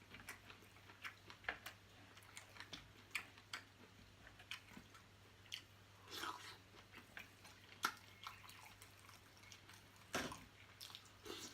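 Faint chewing of a person eating a seafood boil: a scattered run of short, soft mouth clicks and wet smacks, with a couple of longer, wetter smacks partway through and near the end.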